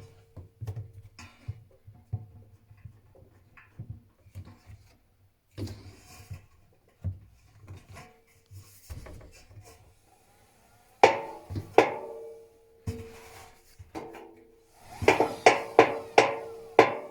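Techwood washing machine running with irregular knocking: soft knocks throughout, two loud knocks about eleven seconds in, and a quick run of about seven loud knocks near the end. The cause of the knocking is unknown to the owner.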